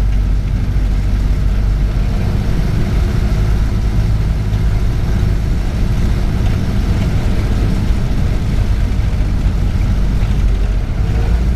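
1931 Ford Model A's 40-horsepower four-cylinder engine running steadily.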